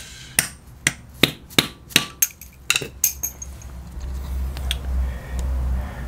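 Rubber mallet tapping a socket extension to drive a new plastic motor coupling down onto a Whirlpool washer motor shaft until it sits flush: about nine sharp taps over the first three seconds, roughly three a second. After that comes a low rumble.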